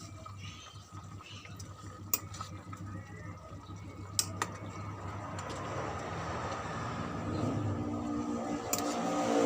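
Metal utensil stirring in a cooking pan, with a few sharp clinks against the pan. A hiss of cooking grows louder through the second half.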